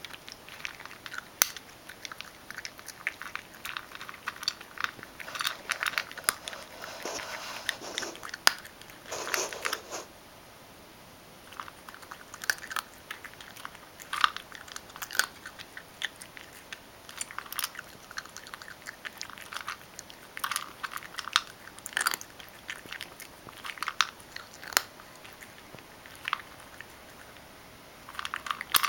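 Ragdoll cat crunching dry kibble: a long run of sharp crunches and clicks as it chews, with a short pause about ten seconds in.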